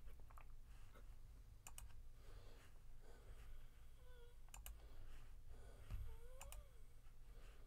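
Near silence after the playing has stopped: a steady low hum with a few faint, sharp clicks.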